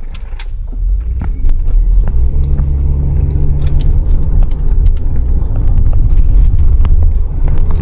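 Loud, steady low rumble of heavy vehicle noise heard from inside a car's cabin. It swells over the first second and then holds, with scattered sharp clicks over it.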